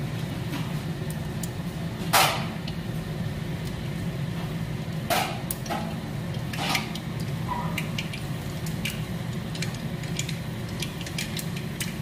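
Pancha phutana (Odia five-spice seeds) crackling in hot oil in an iron kadai: scattered small pops and ticks that grow more frequent near the end, with three louder pops about two, five and six and a half seconds in. A steady low hum runs underneath.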